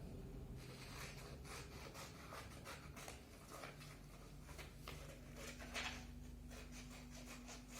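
Scissors cutting through paper, with irregular short snips and the rustle of the sheet being turned.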